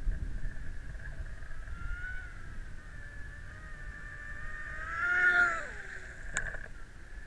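Motor whine of radio-controlled speedboats heard from on board one of them. A steady high whine is joined by a second boat's whine that rises in pitch and loudness to a peak about five seconds in, then drops in pitch and fades as it passes close. A single sharp click follows.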